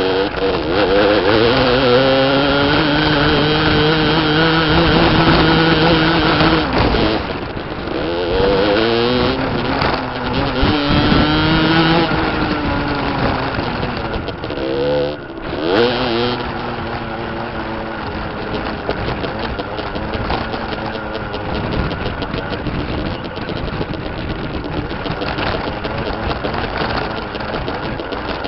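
Beta RRT 50 enduro's 50cc two-stroke engine revving up and easing off in several sweeps, with short throttle dips about seven, twelve and fifteen seconds in. From about seventeen seconds it runs steadily at lower revs.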